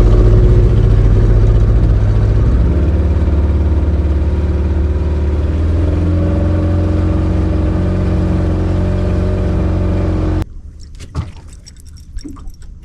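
Outboard motor of a small fishing boat running steadily under way, its note easing down slightly a couple of times. It cuts off suddenly about ten seconds in, giving way to a much quieter scene with scattered small clicks.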